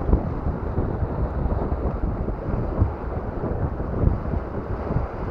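Strong sea wind buffeting an action camera's microphone: a low, rumbling noise that keeps up throughout, with sharper gusts now and then.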